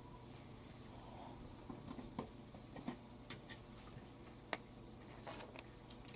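Faint, scattered clicks and light taps of metal parts and screws being handled as a desktop power supply is fitted into a computer case.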